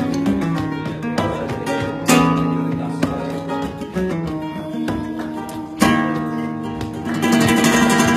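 Flamenco guitar playing bulerías: plucked notes with hard-struck strummed chords about two and six seconds in, and a denser strummed passage near the end.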